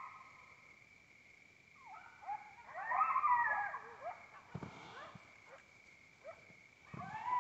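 Coyotes yipping and howling in a chorus of wavering, gliding calls, loudest about two to four seconds in and rising again near the end, over a faint steady high tone.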